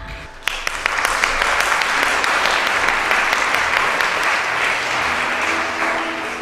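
Theatre audience applauding, the clapping breaking out suddenly about half a second in and fading near the end as music comes in.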